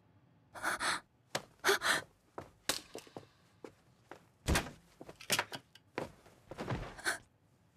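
Sharp gasps and heavy breaths in short bursts from people clutching each other, with a dull thud about four and a half seconds in.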